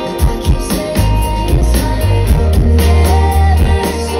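Live pop-rock band music over a loud PA: a steady drum beat, heavy bass and electric guitar, with a sung vocal line.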